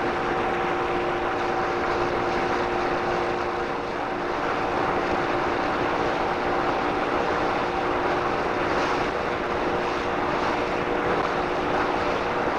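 Ski boat's engine droning steadily at a constant speed, heard from the towed tube, over a rush of water and wind noise on the microphone.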